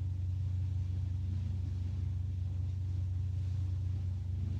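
Steady low background hum, with no other sound standing out.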